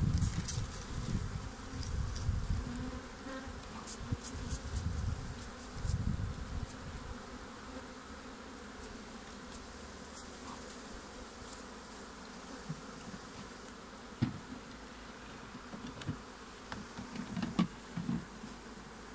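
Honeybee colony buzzing steadily over an open hive. Low handling knocks and thumps in the first few seconds, and a few sharp knocks near the end.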